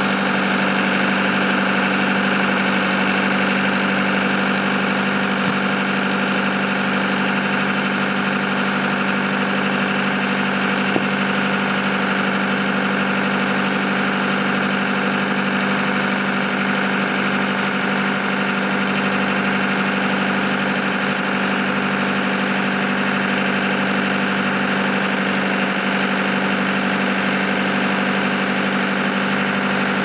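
Wood-Mizer LT70 electric sawmill and the diesel generator powering it running, a steady, unchanging machine hum.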